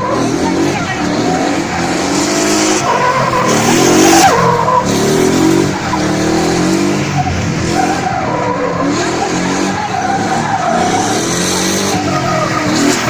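A drifting car's engine revving up and down over and over, with its tyres skidding and squealing as they are burned through a drift.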